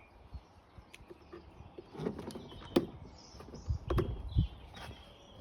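Scattered plastic clicks and knocks from handling a hose coupling and its retaining clip at a Kärcher K4 pressure washer's water inlet.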